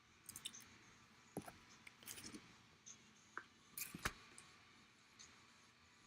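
Faint handling noises: scattered small clicks, taps and light rustles, with a sharper tap about four seconds in.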